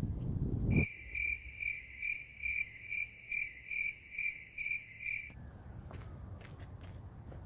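Cricket chirping sound effect, the comic 'crickets' gag: a steady high chirp pulsing about twice a second, starting abruptly about a second in and cutting off abruptly about five seconds in.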